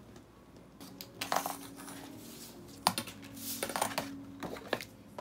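A steel ruler clinking and sliding against a wooden worktable, with a large sheet of pattern paper rustling as it is shifted. There are several sharp clinks, the loudest about halfway through.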